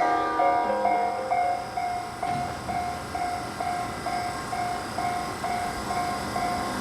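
Japanese level-crossing warning bell ringing, an even ding repeating about twice a second, over the steady running noise of a train on the line.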